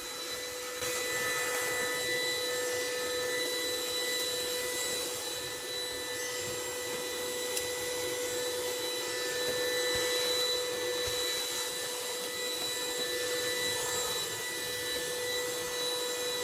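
Cordless vacuum cleaner running steadily, its motor holding a constant high whine over the suction noise.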